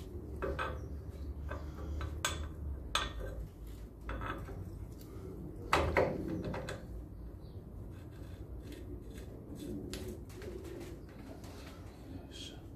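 Sparse metal clinks and knocks from a Land Rover Series swivel pin housing being handled and seated on the swivel ball with its preload shims fitted, the loudest knock about six seconds in.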